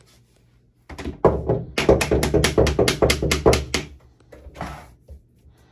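Hammer or mallet striking a tapping block to seat a floor plank: a rapid run of about a dozen sharp taps, roughly five a second, then one more strike.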